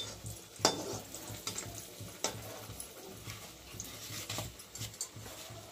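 Kachoris deep-frying in hot oil in a steel kadai, a low steady sizzle, broken by a few sharp clinks of the metal slotted ladle against the kadai and the steel container. The loudest clink comes a little under a second in.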